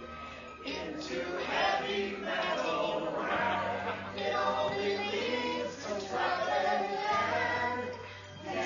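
Rock musical song playing: sung vocals over band accompaniment, with sustained bass notes that change pitch a few times.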